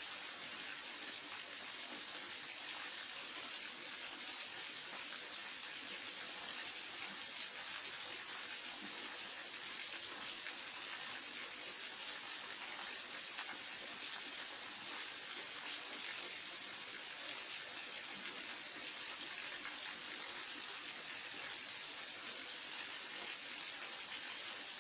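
Waterfall: falling water rushing steadily, a constant hiss that stays even throughout.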